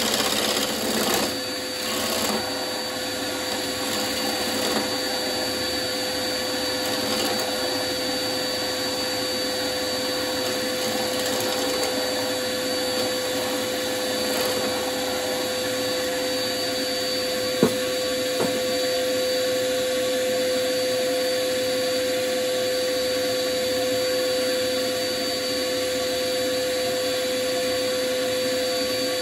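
Wood lathe running with a steady whine, over the rushing noise of a turning tool cutting the spinning wood. The cutting is rougher and louder in the first couple of seconds, and a single sharp click comes a little past halfway.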